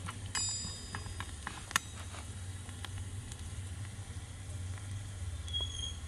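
Small metal spoon clinking and scraping against a miniature wok: a short metallic ring about half a second in, a sharp click soon after, scattered light taps, and another brief ring near the end, over a steady low hum.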